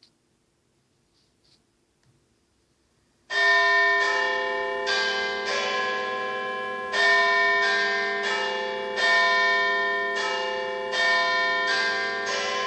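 Near silence for about three seconds, then the Big Ben clock-tower bells start chiming. It is a slow sequence of large bell strikes at different pitches, each one ringing on under the next.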